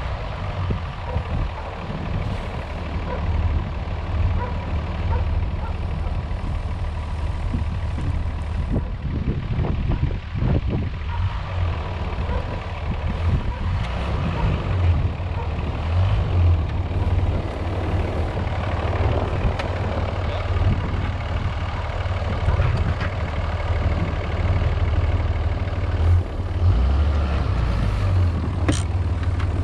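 Tractor engine running steadily with a deep rumble.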